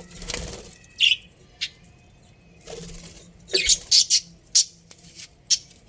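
Budgerigars in a colony giving a string of short, sharp chirps, busiest about three and a half to four and a half seconds in, with a brief rustle at the start.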